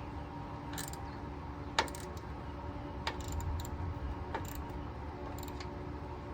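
A few scattered metallic clinks and knocks of hand tools on bolts while the stock rock sliders are unbolted, with one sharper knock just before two seconds in, over a steady low hum.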